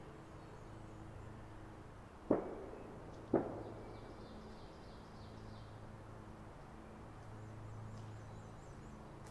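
Two gunshots from a gun club's shooting range, about a second apart, each trailing off briefly.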